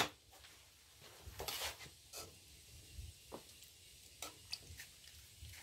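Faint scattered clicks and soft knocks over quiet room tone.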